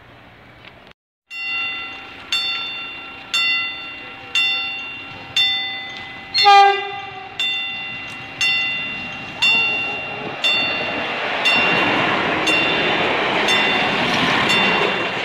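Level-crossing warning bell striking about once a second. A short train horn blast sounds about halfway through. A red-and-white passenger train then passes over the crossing, its rushing noise building near the end.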